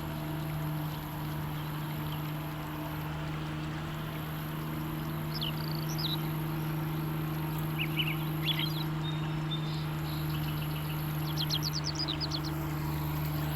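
Outdoor ambience: a steady low hum over a rushing wash of noise, with small birds calling a few short chirps midway and a quick trill near the end.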